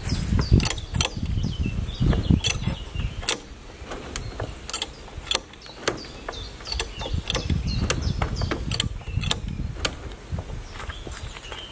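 Irregular sharp metallic clicks and knocks, about one or two a second, some with a dull thump, from tool work on a log wall. Birds chirp in the background.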